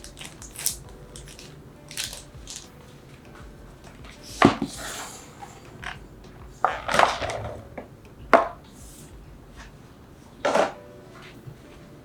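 Kitchen food-prep handling sounds: about six scattered knocks and short rustles, with dishes and utensils being set down and produce handled.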